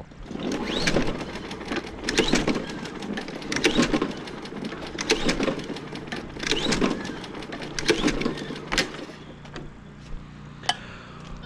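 Push mower's recoil starter pulled repeatedly, about every second and a half, the engine turning over without firing. It is being cranked to clear water from condensation out of the cylinder.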